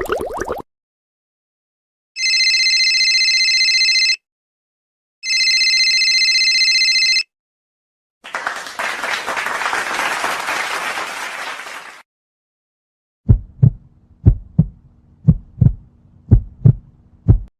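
A string of sound effects. First, two electronic telephone rings, each about two seconds long with a pause between them. Next comes about four seconds of applause, and then a heartbeat of deep double thumps (lub-dub) repeating at a steady pace.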